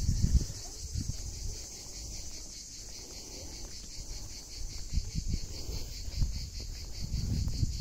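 A steady, high-pitched chorus of insects shrilling in the trees with a fine rapid pulsing, over low irregular thuds of footsteps on asphalt.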